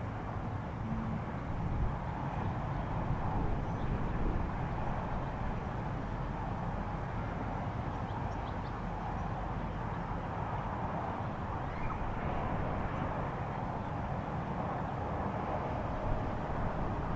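Steady low rumble of a distant drone in the sky, even throughout with no clear separate events.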